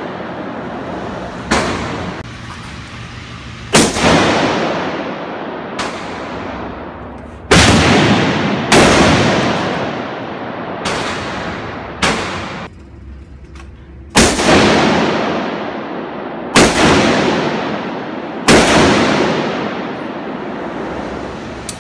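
Smith & Wesson M&P15 Sport II AR-15 rifle in 5.56 mm firing slow, single aimed shots, about ten, spaced one to three seconds apart. Each shot is a sharp crack with a long echoing tail off the walls of the indoor range.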